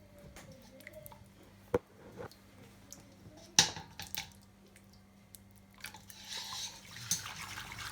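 Tablespoons of thick, sticky maltose being scooped and worked into a pot of water, making soft squishing sounds, with two sharp taps of the spoon, about two seconds apart.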